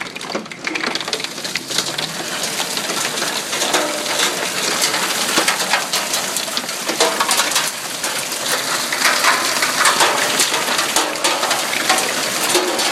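Heavy hail pelting down: a dense, steady rattle of countless hailstones clattering on hard surfaces, heard through an open door.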